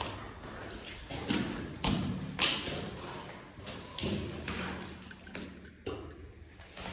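Irregular scuffs and knocks, roughly one every half second to a second, of a person scrambling over cave rock; they thin out after about five seconds.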